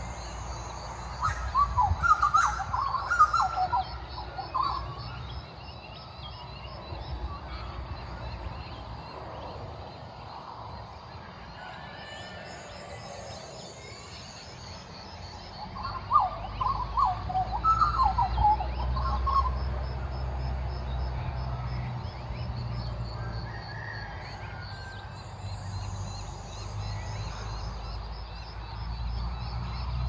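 Butcherbirds calling in two bouts of quick, warbling, fluted notes, one near the start and one about midway. A steady pulsing insect trill runs high above them, with a low rumble underneath.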